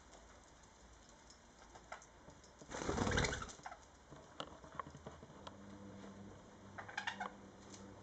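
Pet budgies scrabbling on a hanging straw-and-sisal toy: scattered small ticks and scratches, a loud rustling flurry of wings and straw about three seconds in as one bird scrambles up onto the ring, and a short burst of budgie chirping near the end.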